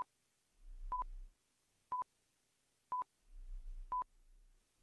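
Countdown timer beeping: five short beeps at one steady pitch, one a second, counting down the answer time.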